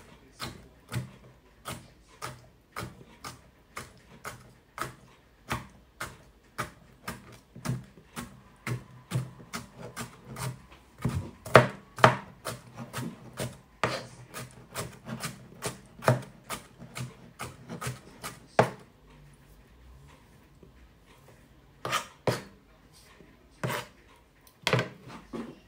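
Chef's knife chopping pickled cucumber slices on a cutting board: a steady run of sharp knocks, about two to three a second. The chopping stops for about three seconds near the end, then a few more strikes follow.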